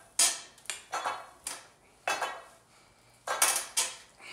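Barbell clanking as it is pressed up and down on a weight bench: the loaded plates knock and rattle against the bar, giving repeated sharp metallic clinks with a short ring, in clusters with each rep.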